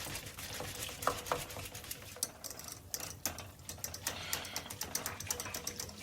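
A hand-pumped, press-action spinning whisk being worked up and down, making a fast, irregular clatter of clicks as the plunger spins the whisk to whip up foam.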